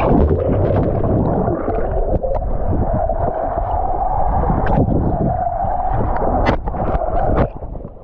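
Pool water heard from under the surface by a submerged action camera: a muffled low rumble and gurgling of moving water, with a steady hum through the middle and a few sharp clicks. The sound thins out about seven and a half seconds in as the camera comes up out of the water.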